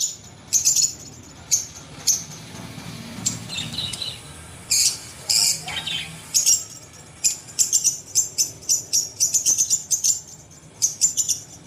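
Birds chirping: many short, sharp high calls, coming in quick runs in the second half, with one call sliding downward in pitch about six seconds in.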